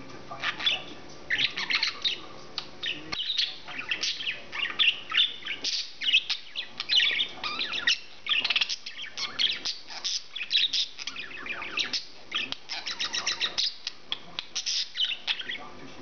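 English budgerigar warbling and chattering: a rapid, almost unbroken stream of short chirps and squeaky twitters that breaks off near the end.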